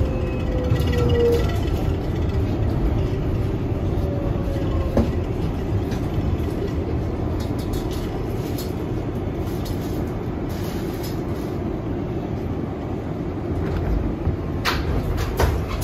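R188 subway train running: a steady low rumble, with a falling motor whine in the first second or so and a single sharp knock about five seconds in.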